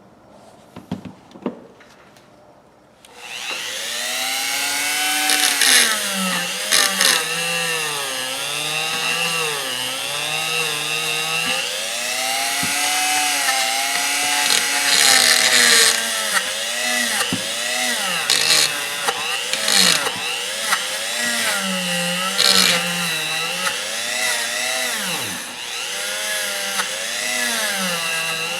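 A few handling clicks, then about three seconds in a small electric power tool starts and runs for the rest of the stretch, its pitch dipping and recovering again and again as it is worked against the rusty steel linesman's pliers during clean-up.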